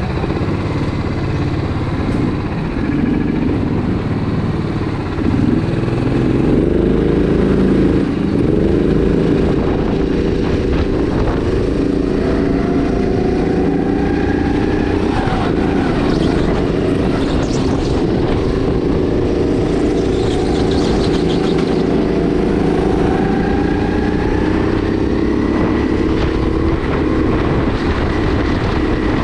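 Sodi RX8 270cc LPG kart's single-cylinder four-stroke engine running at speed, its pitch dropping and climbing again several times as the throttle comes off and back on.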